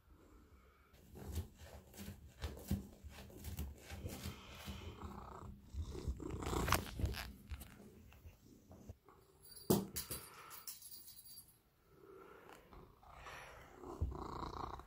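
Domestic cat purring close to the microphone, with soft knocks and rustles as it rubs its face against the phone.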